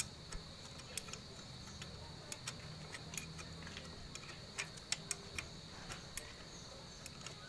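Sparse, irregular light clicks and taps of small metal parts and tools being handled as a motorcycle carburetor is refitted to its intake manifold, over a faint steady high-pitched whine.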